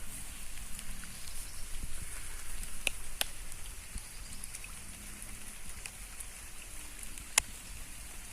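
Heavy rain falling as a steady hiss, with scattered sharper ticks of drops striking close by; one tick about seven seconds in is the loudest.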